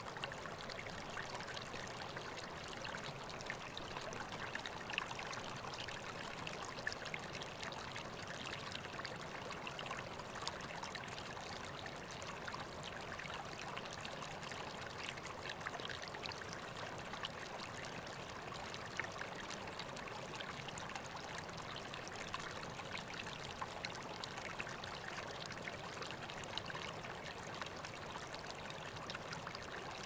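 Shallow stream running over rocks: a steady rush of water with many small splashes and trickles through it.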